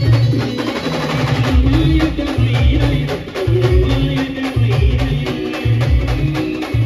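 Loud Indian band music played through a truck-mounted speaker system: heavy bass hits about once a second under fast, even percussion and a melody.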